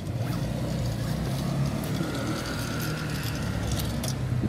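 Busy pedestrian street ambience: a steady low hum of traffic with footsteps on the pavement, and a child's kick scooter rolling close by near the end.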